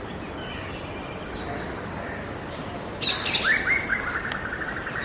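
Faint birdsong, then about three seconds in a bird gives a loud, harsh call: a sudden burst of shrill notes running into a fast rattling series of repeated notes.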